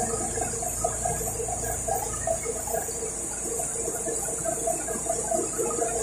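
Old city bus running, heard from inside the passenger cabin by the rear door: a steady low engine drone with a wavering whine over it and a constant high hiss.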